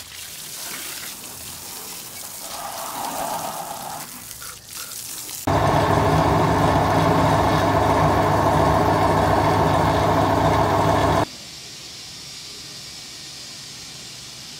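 A hose sprays water over a tractor engine. Then a loud, steady machine drone with an even hum runs for about six seconds and cuts off suddenly, followed by a steady hiss.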